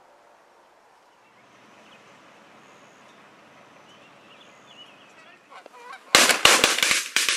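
Geese honking faintly overhead, then from about six seconds in a rapid volley of loud shotgun blasts from several guns firing almost together.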